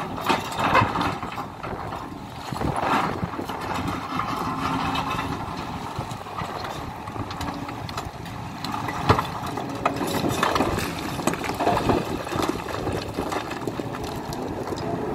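Hidromek HMK 310LC excavator at work: its diesel engine running while the bucket scrapes and rocks clatter and knock, with irregular louder knocks throughout.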